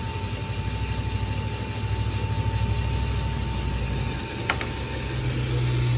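ROEST sample coffee roaster running with a steady low hum from its fan and drum motor. A sharp click comes about four and a half seconds in, and then the hum steps up in pitch as the fan speeds up at the start of a roast.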